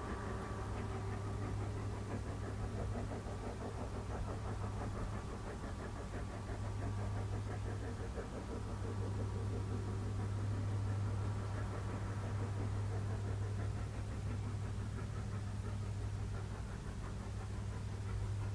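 Brienz Rothorn Bahn rack-railway train working uphill: a steady low drone with a quick rhythmic beat over it, growing a little louder from about halfway through.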